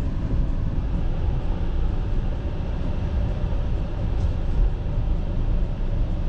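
Car cabin noise while driving: a steady low rumble, heard from inside the car.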